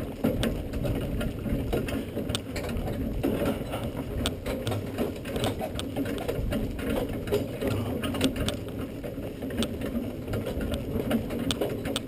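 Horse-drawn driving carriage rattling and clicking as it rolls over a dirt track behind a trotting Dutch Harness Horse, with a continuous low rumble and the hoofbeats mixed in.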